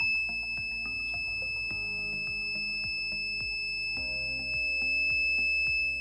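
Door-alarm buzzer on an LM358 reed-switch circuit sounding one steady high-pitched tone: the alarm is triggered, the reed switch having been moved away from its magnet as the door opens. Background music plays underneath.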